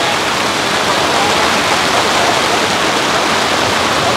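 Heavy rain pouring down on a tarp canopy overhead: a loud, steady, unbroken rush.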